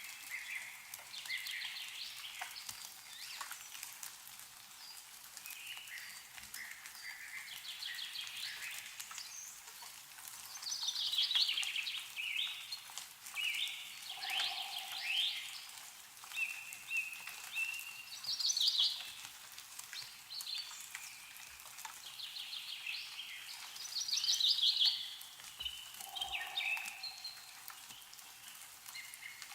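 Songbirds singing short trilled phrases again and again, over a faint patter of meltwater dripping from snow-laden trees.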